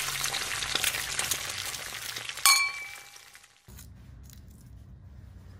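Intro sound effect: a dense crackling noise for about two and a half seconds, ending in a single sharp clink that rings on and fades. It cuts off suddenly, leaving quiet room tone with a few faint snaps of pea pods being split by hand.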